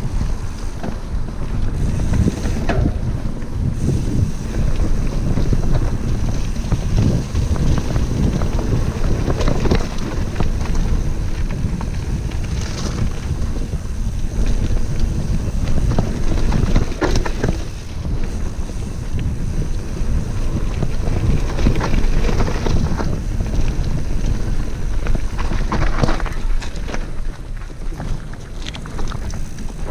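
Wind buffeting the microphone over a continuous low rumble of mountain bike tyres rolling fast on a dirt trail, with scattered knocks and rattles from the bike over bumps.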